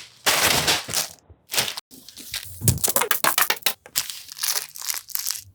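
Plastic snack packaging being torn open and crinkled: a long tearing rip near the start, then a run of crackly crinkles.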